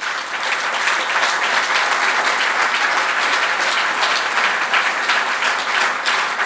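Audience applauding, a dense, steady clapping louder than the talk around it.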